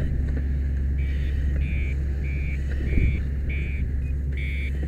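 A repeating electronic beep, about seven short beeps alternating slightly in pitch, sounds over a steady low engine rumble.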